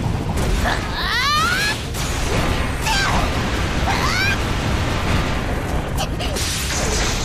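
Cartoon battle sound effects: a dense rumbling din of crashes and impacts, with a few sharp hits near the end. Over it a young woman gives short effort shouts and straining grunts as she swings a heavy war hammer.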